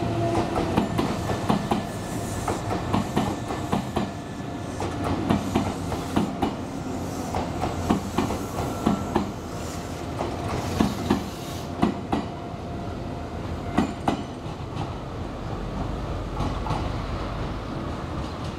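Electric commuter train passing close by, its wheels clattering over rail joints in quick irregular clicks over a steady rumble and a faint steady whine. The clatter thins out over the last few seconds. The sound is as picked up by the compact camera's built-in microphone.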